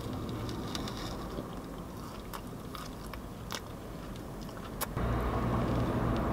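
A person biting into and chewing a soft chicken burger, with small mouth clicks. Under it runs a low steady rumble that gets louder near the end.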